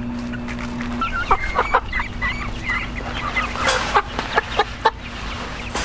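Chickens clucking and cheeping in a run of short, quick calls, with a brief rustle a little past halfway.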